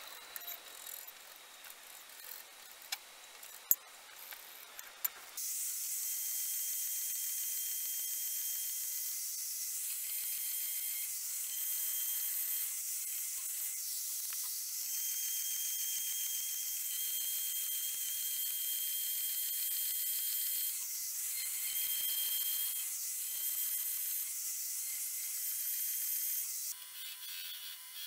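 Metal-cutting band saw blade cutting through a mild steel plate: a steady high hiss with a thin whine, starting abruptly about five seconds in and wavering slightly as the cut goes on. Before it come a few light clicks and scratches, and near the end the saw gives way to a lower hum.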